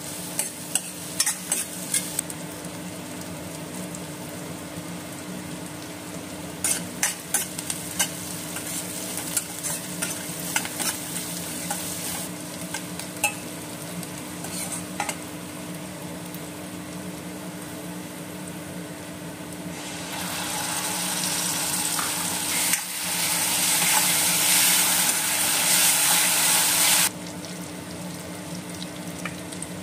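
Sliced onions, garlic and curry leaves frying in oil in a stainless steel kadai, a spatula clicking and scraping against the pan as they are stirred. From about two-thirds of the way in the sizzle turns louder and hissier for several seconds, then cuts off suddenly, over a steady low hum.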